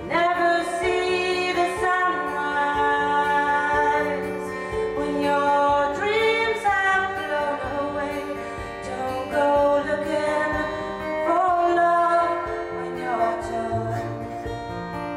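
A woman singing solo with acoustic guitar accompaniment, her voice coming in right at the start and carrying long sung phrases over the guitar.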